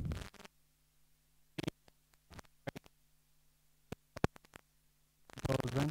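Whiteboard marker strokes: a scattering of short, sharp scratches and taps as letters and numbers are written. A faint steady low hum runs underneath.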